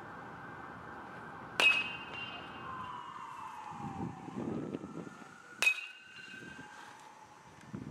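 Two sharp cracks of a bat hitting a baseball, about four seconds apart, each followed by a brief ringing. Under them runs a steady whine that glides down in pitch partway through and then holds at a higher pitch.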